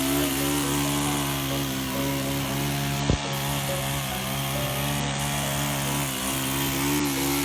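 A motor running at a steady pitch, a low hum over a hissing rush, with a sharp click about three seconds in.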